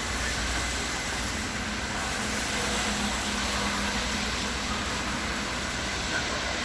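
Steady rain noise with a low hum underneath, and a faint steady tone for a few seconds in the middle.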